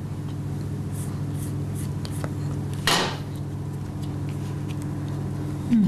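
Steady low electrical hum, with one short rustle about three seconds in as filo pastry is rolled by hand on a silicone mat.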